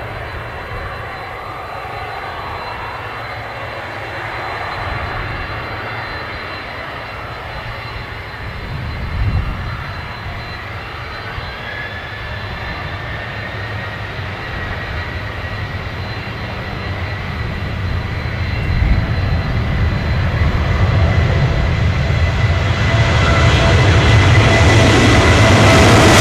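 The two jet engines of a Boeing 767-300 airliner running as it rolls along the runway after landing, growing steadily louder as the aircraft approaches. A high engine whine comes in about halfway through over the low rumble.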